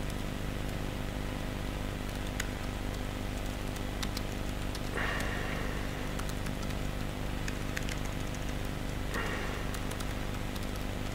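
Scattered keystrokes on a laptop keyboard as code is typed, over a steady electrical hum. Two short hissing noises come about halfway through and again near the end.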